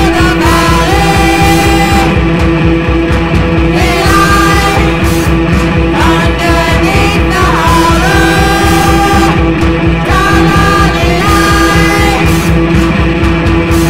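Bass-less noise-rock trio playing, with a fast steady drumbeat, droning guitar and bellowed, unintelligible vocals.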